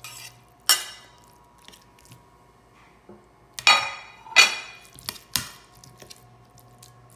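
Metal spatula knocking and scraping against a stainless steel skillet while breaking up raw ground chicken: four sharp metallic clanks with a brief ring, one about a second in and three close together in the middle.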